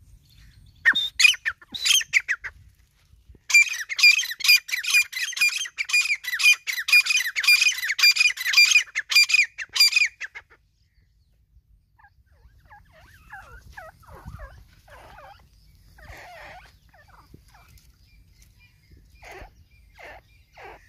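Teetar (francolins) calling. A few loud notes come about a second in, then a fast, rhythmic run of repeated calls at about four a second that lasts some seven seconds and stops suddenly. Softer, scattered calls follow.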